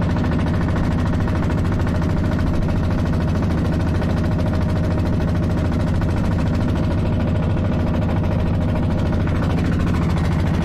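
Wooden river longboat's motor running steadily under way, a loud, even, rapid-firing drone with no change in speed.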